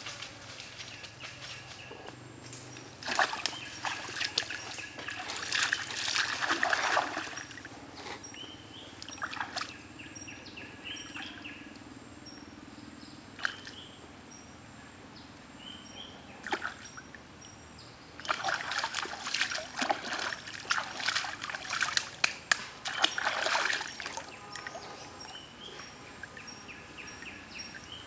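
Hands splashing in a shallow forest stream while catching a frog, with two longer stretches of louder splashing and quieter trickling between.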